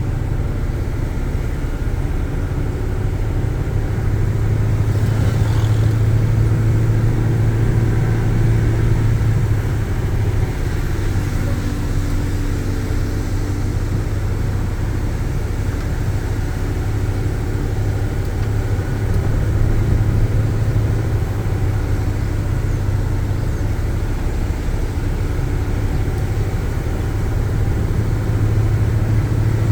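Car driving, with steady engine and road noise: a low drone that swells a little about six seconds in and again around twenty seconds in.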